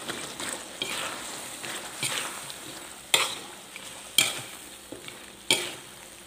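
Chicken, eggplant and chilies sizzling in a hot wok while a spatula stirs and scrapes them around. The spatula knocks against the wok, with three sharp, loud strikes about a second apart in the second half.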